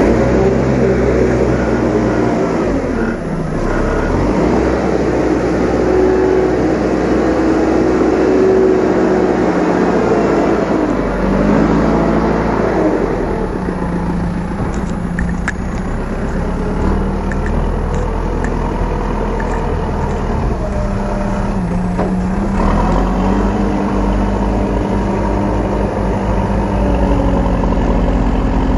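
JCB 4CX backhoe loader's diesel engine working under load, its pitch rising and falling repeatedly as the machine digs and loads soil, over a steady low rumble. A few faint clicks about halfway through.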